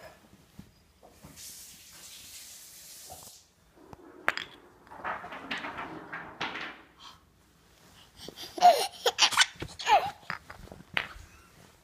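A baby babbling and letting out short laughing squeals that slide in pitch, loudest in the second half. Soft rustling early on and a few sharp knocks from movement.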